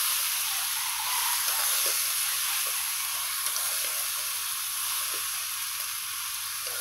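Bean sprouts, fried tofu and oyster mushrooms sizzling steadily as they are stir-fried in a wok, with faint scrapes and taps of a metal spatula and chopsticks turning them.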